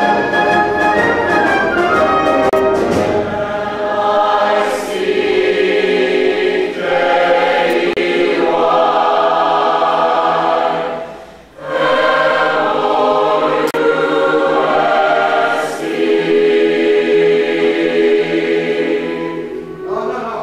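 A choir singing sustained chords, with a short break about halfway through before the voices come back in.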